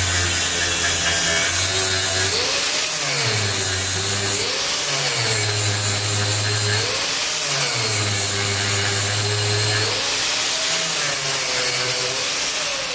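Electric angle grinder grinding down a weld bead on stainless steel plate. The motor's pitch rises and drops every couple of seconds, and it starts to wind down right at the end.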